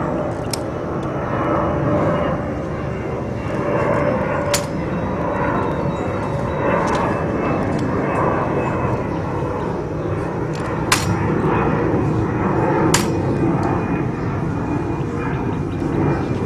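Four sharp clicks, several seconds apart, from a ceremonial guard's rifle inspection drill, over a steady rumble.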